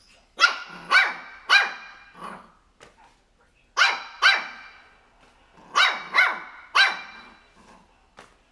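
Three-month-old shih tzu puppy barking in short, high-pitched yaps, in three quick bursts of two to four barks each.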